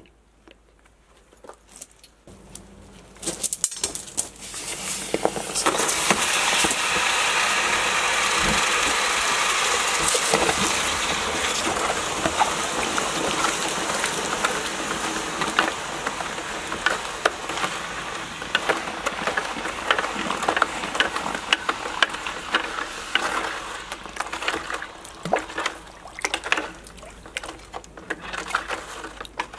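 Red-hot pack-carburised steel parts quenched in a bucket of brine. A loud sizzling boil starts a few seconds in, swells, then slowly dies down as the steel cools. Steel tongs clink against the parts and the bucket as they are stirred.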